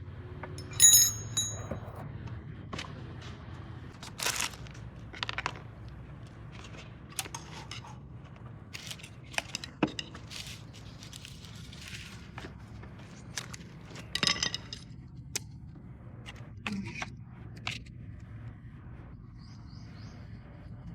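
Scattered clinks and knocks of metal tools and parts being handled, two of them louder and ringing, over a steady low hum.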